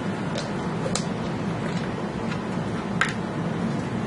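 A few sharp, scattered clicks from husky dogs on a hardwood floor, a puppy chewing a chew stick and a grown dog walking past, over a steady low hum.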